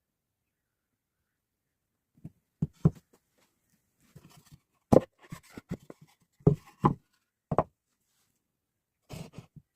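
Wooden knocks and taps from a small pallet-wood box being handled, coming irregularly from about two seconds in, a dozen or so in all.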